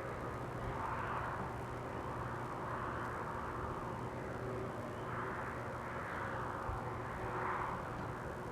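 Steady outdoor rushing noise over a constant low hum, swelling and easing every couple of seconds.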